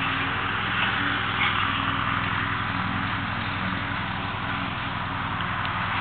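A steady low motor hum with a fast even pulse, under an even hiss.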